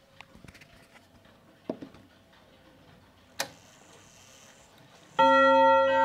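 A few faint clicks, then about five seconds in the rod chime of an Odo 54/8 French wall clock starts: a hammer strikes its steel and brass gong rods, which ring out clear and sustained as the first note of the chime melody.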